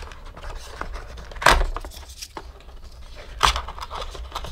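Wooden square rattle being handled and worked out of its cardboard box insert: light scraping and rubbing of wood on cardboard, with two sharp clacks, one about a second and a half in and another about two seconds later.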